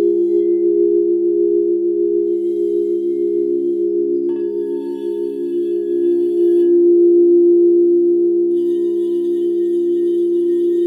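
Frosted quartz crystal singing bowls sounding together in several long, steady tones, one played with a mallet against its rim, with a slow pulsing beat running through the sound. About four seconds in, a new bowl tone starts sharply with higher ringing overtones and the sound swells.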